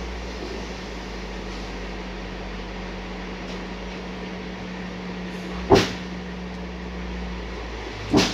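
Heavy truck's engine running steadily with a low hum, and two sharp knocks about two and a half seconds apart, the second near the end.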